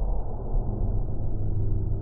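Low, steady rumble with no distinct strikes, its pitch dropped by slow-motion playback of the footage.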